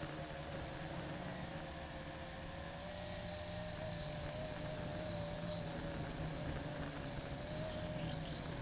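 LaTrax Alias quadcopter's electric motors and propellers whirring steadily in flight, the pitch wavering slightly as the motors adjust.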